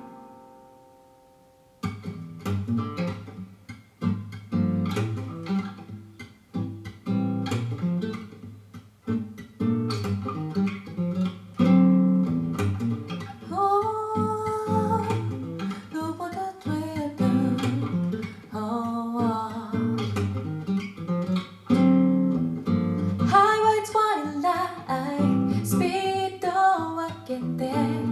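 Acoustic guitar playing a strummed and plucked instrumental passage of a Japanese-language song. About two seconds in, the guitar comes back in after the previous note fades out.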